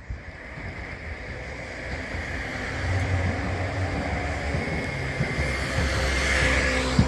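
A train approaching on the rails, its low rumble growing steadily louder.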